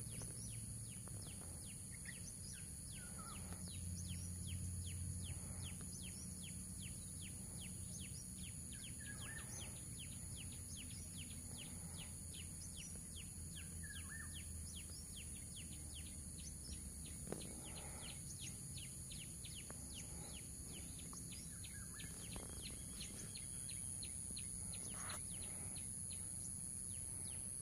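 Insect and bird ambience: a steady high-pitched insect drone with a rapid repeated chirp about three times a second, a few scattered bird chirps, and a low background rumble.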